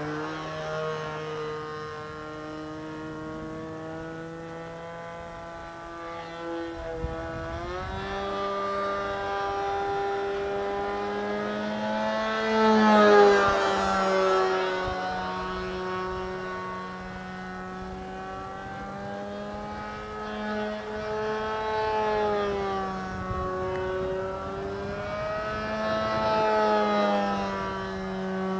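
Engine of a Phoenix Edge 540 radio-control aerobatic plane with a can muffler, in flight: a pitched engine note that steps up in pitch about seven seconds in, swells to its loudest with a rise and fall in pitch around thirteen seconds in, then keeps wavering up and down as the plane manoeuvres.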